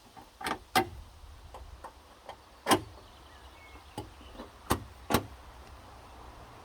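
Six or so sharp, irregular clicks and knocks from a car door's interior panel and trim being fitted back on, the loudest just under three seconds in.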